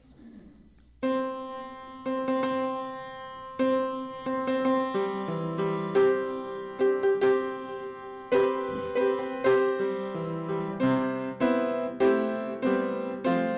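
Piano playing slowly. It opens with single held notes about a second in, then moves into chords that come fuller and more often.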